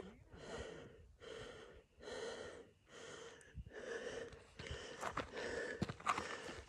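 A hiker's heavy breathing, panting in and out about once a second from the exertion of a steep uphill climb. A few footfalls on the dirt trail come in the second half.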